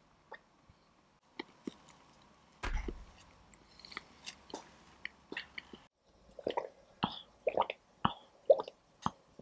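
Close-miked eating sounds of cake being eaten: soft mouth clicks, a straw sip and chewing, with one sharp knock with a dull thud about a third of the way in. After a brief silent break a little past halfway, a quicker run of short wet mouth clicks and pops.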